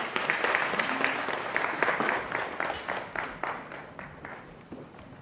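A group of mourners clapping, strongest in the first two seconds and dying away by about four seconds in.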